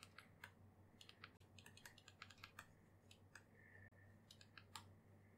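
Near silence with faint, irregular clicks and taps from a drawing-tablet pen and computer keys, over a low steady hum.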